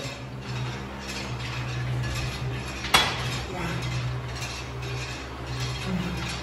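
Metal clinks and rattles from a cable pulldown machine being worked through repetitions, with one sharp metallic clack about three seconds in, over a steady low hum.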